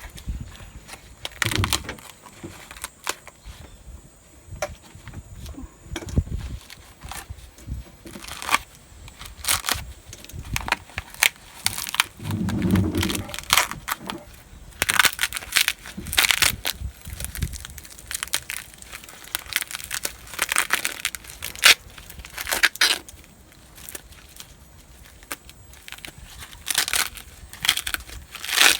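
Dried luffa gourds being peeled by hand: the brittle skin cracks, crunches and tears in irregular crackling snaps.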